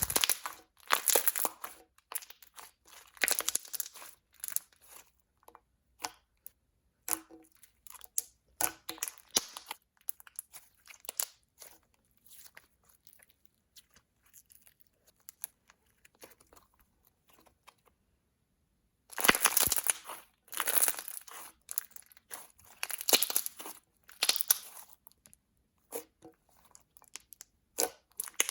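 Hands pressing, squishing and stretching a very thick, glossy slime mixed with small confetti beads, in repeated short bursts with a quieter stretch in the middle.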